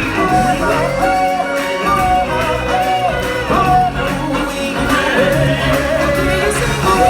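Song from a live stage musical: voices singing over instrumental backing, a short sung phrase repeating about once a second.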